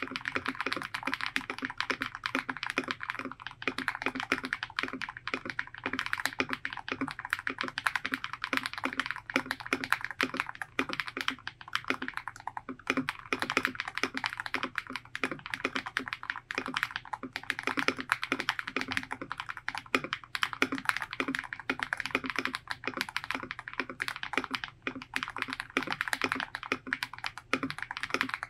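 Typing on an Ikki68 Aurora custom mechanical keyboard with lightly lubed Strawberry Milk Ice linear switches and crystal keycaps: a steady, fast run of keystrokes with no pauses.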